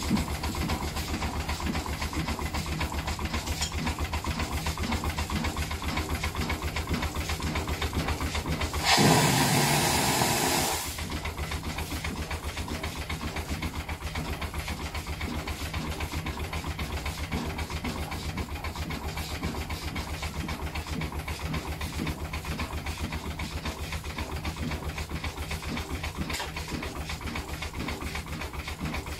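Green & Son 'Economiser' steam engine running with a rapid, even beat. About nine seconds in, a loud rush of steam hiss cuts in for about two seconds, then the steady running carries on.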